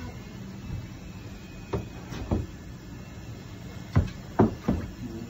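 Hollow knocks and clunks of plastic fish tubs being handled while fish are picked out: two around two seconds in, then three louder ones close together near the end.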